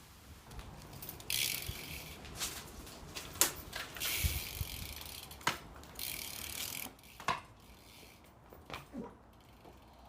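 BMX bike being ridden: the rear hub's freewheel ticking as it coasts, tyres rolling in stretches of about a second, and several sharp knocks from the frame and wheels.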